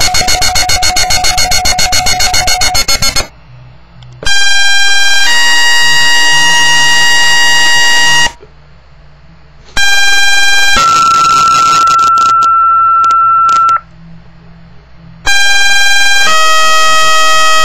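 Fire dispatch two-tone sequential paging tones received on a Motorola Minitor II pager and a Uniden Bearcat BC350C scanner. Several tone sets come one after another, each a short tone stepping to a longer, steady tone, with quiet gaps between them. The first set ends in a rapid pulsing beep, about eight a second.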